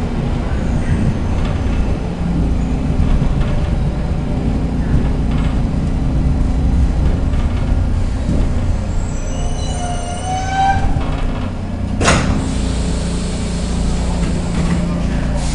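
Stockholm Metro C6 train car running on the rails with a steady low rumble. A brief rising whine comes about ten seconds in, then a sharp burst of hissing air about twelve seconds in that goes on as a fainter high hiss.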